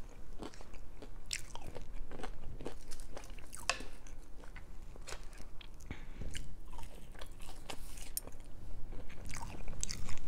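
Close-miked chewing and biting of baked crinkle-cut fries: many short, crisp crunches and wet mouth clicks, unevenly spaced.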